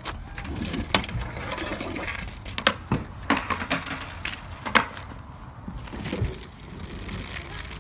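Plastic toy monster trucks clattering and knocking. About a dozen sharp knocks are scattered unevenly, the loudest about one second in and again near five seconds.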